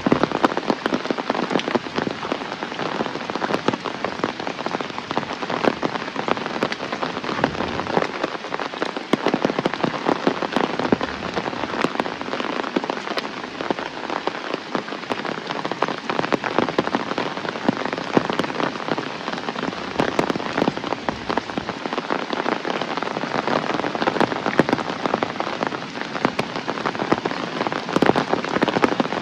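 Heavy rain falling steadily, with a dense patter of drops striking hard surfaces close by.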